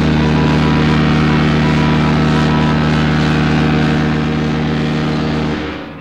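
One long, steady low-pitched horn blast that starts suddenly, holds one unchanging tone and fades away near the end.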